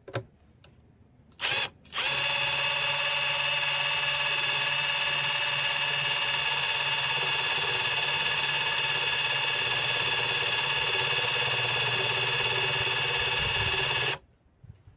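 Hercules cordless impact driver on speed 1: a short blip about a second and a half in, then it runs steadily for about twelve seconds with an even whine and stops abruptly. The screw fails to drive into the thick steel plate.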